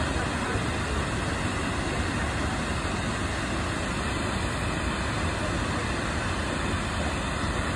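Steady rush of water from Upper Tahquamenon Falls, a wide waterfall pouring over a rock ledge, an even unbroken noise with no change in level.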